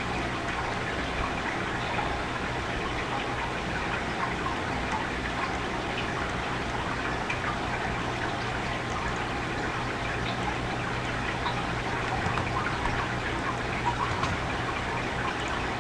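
Steady hiss with a low, even hum: the recording microphone's background noise, with a few faint clicks scattered through.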